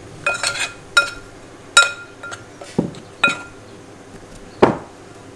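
Metal spoon clinking and tapping against a fluted ceramic bowl while stirring flour, salt and pepper together into a dry coating: about six separate ringing clinks, the last a little before the end.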